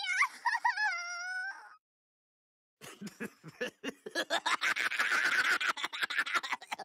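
Novelty ringtone's recorded animal cries: short, high whining calls ending in one longer held cry. After about a second of silence a harsh, noisy rasp begins.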